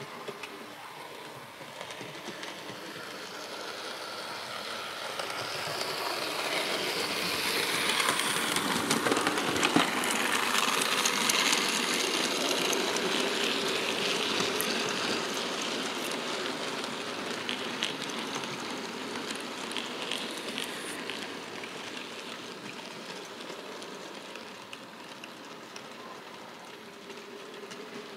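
OO gauge model goods train running past on the track: a rushing rumble with faint clicking of the wheels that grows louder, is loudest about a third of the way in, and then fades away.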